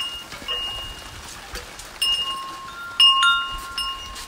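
Wind chimes ringing: several clear tones struck at irregular moments, each ringing out for up to a second, with rain tapping lightly on an umbrella underneath.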